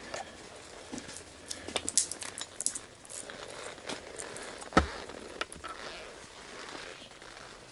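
Clicks and clinks of a whisky bottle and a glass being handled, with one loud knock a little before five seconds in.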